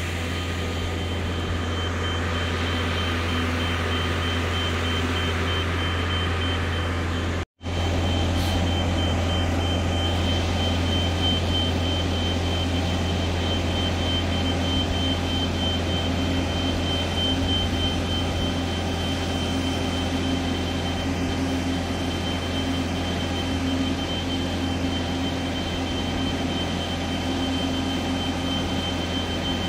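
Diesel power unit of a remote-controlled self-propelled modular transporter carrying a yacht, running steadily as a deep drone with a thin steady high whine over it. The sound drops out for an instant about seven and a half seconds in.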